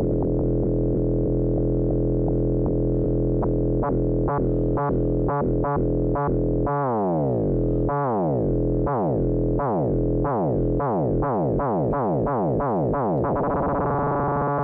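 Roman Filippov 208r Buchla Easel clone's complex oscillator, its pitch driven by the envelope generator self-cycling. A steady held tone breaks into regular clicks about four seconds in. Then come repeating falling pitch sweeps that speed up as a slider is moved, and near the end it settles into a steady, brighter tone.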